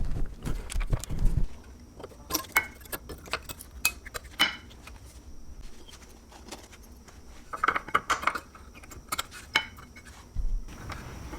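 Irregular metal clinks and clicks of hand tools and brake parts being handled during rear brake reassembly, with a quick run of clicks about eight seconds in and a few dull thumps.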